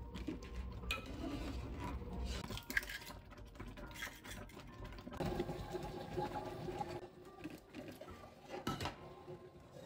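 Quiet cooking sounds: a pot of oats simmering, a spatula stirring and knocking in the pot, and eggs being cracked into a bowl, with a few light knocks scattered through.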